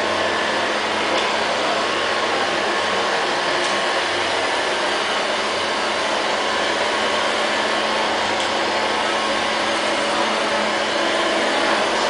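Liectroux LL-302 robot vacuum cleaner running steadily, its suction motor giving an even, unbroken whirring noise.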